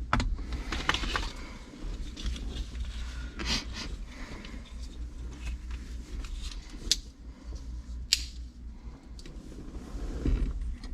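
Scattered small clicks and scrapes of hand work on the steering column's turn signal switch and wiring, with a sharper click about 7 and 8 seconds in, over a faint low hum.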